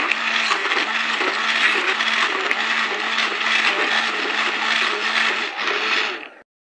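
Electric hand blender running, its blade churning peeled orange segments and sugar into juice in a glass bowl; a steady whirring that stops abruptly near the end.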